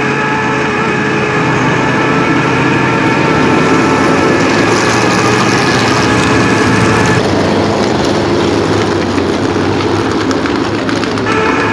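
Groundpounder modified race car engine running at a steady pace-lap speed behind the pace car, heard close up from a bumper-mounted camera with wind rush. About seven seconds in the sound cuts to the noisier rumble of the cars passing trackside. A little after eleven seconds it returns to the steady close-up engine tone.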